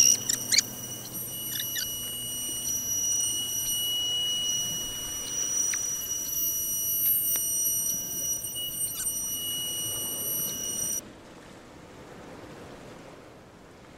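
CNC-mounted router spindle running with a steady, high-pitched whine as its bit cuts a pocket in a pine board, with scattered clicks and ticks. About eleven seconds in the whine cuts off abruptly, leaving a quieter, even hiss.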